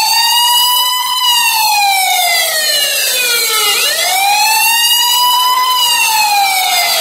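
A siren wailing in long, slow sweeps: the pitch sinks slowly from about a second in, swoops back up near four seconds, and sinks again.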